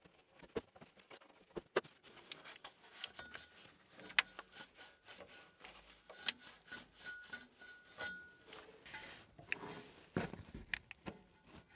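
Quiet hand-tool work on an engine: scattered small clicks and rubbing as the hose clamp on a backhoe's upper radiator hose is loosened and the rubber hose is worked up off the thermostat housing. A faint thin squeak comes and goes in the middle.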